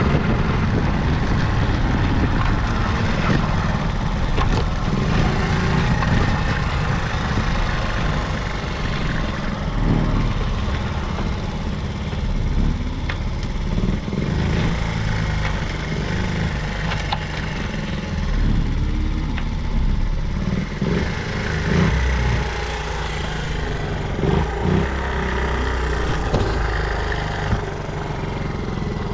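Vintage Honda Gorilla Z50J's 49 cc four-stroke single-cylinder engine running, mostly at idle, with no abnormal noise.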